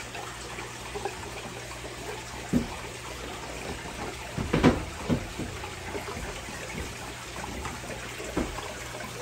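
Aquarium water trickling and splashing steadily, over a low steady hum, with a few sharp knocks against the plastic isolation box; the loudest comes about four and a half seconds in.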